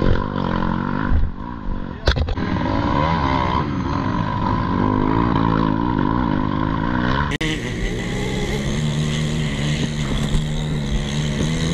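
ATV engine running while it tows a dead dirt bike over rough ground, its pitch wavering up and down. About seven seconds in the sound changes abruptly to a steadier, lower engine note.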